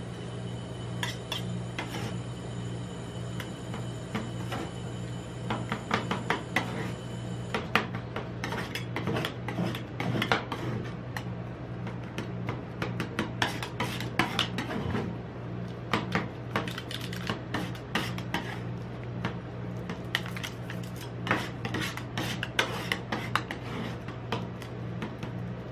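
Steel spatulas chopping and scraping a partly frozen ice cream mixture on a stainless steel cold plate, with sharp metal-on-metal taps of the blades against the plate. The taps come sparsely at first and grow busy from about eight seconds in. A steady low hum from the cold plate's refrigeration runs underneath.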